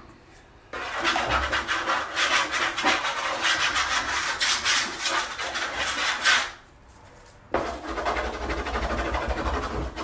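Fast scribbling strokes of a drawing tool scratching across a wooden painting panel, in two bouts with a pause of about a second between them.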